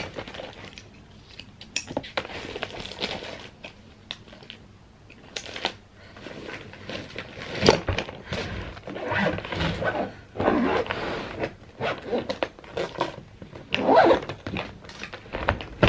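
A hard-shell wheeled suitcase being packed and closed: clothes rustling and shifting, the lid knocking as it is pressed down, and its zip being pulled around the shell in short scraping runs.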